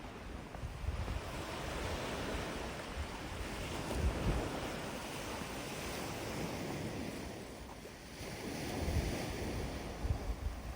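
Gentle waves washing onto a sandy beach, the surf swelling and easing, a dip about three-quarters of the way through before the next wave comes in. Wind buffets the microphone underneath.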